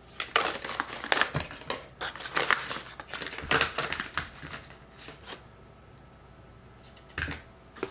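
Paper cards and box packaging rustling and crinkling as they are handled and shuffled through: busy for the first few seconds, then quieter, with one more short rustle near the end.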